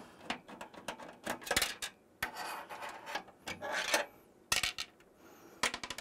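Sharp metallic clicks and short scraping rubs as a metal expansion-slot bracket is worked loose at the back of a steel PC case to free the graphics card.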